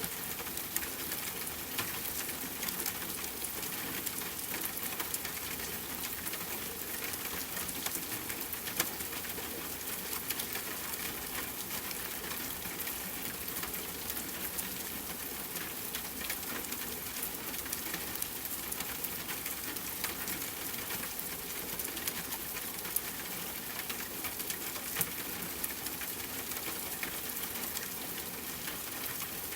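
Steady rainfall with a constant hiss and many individual drops ticking sharply on a surface.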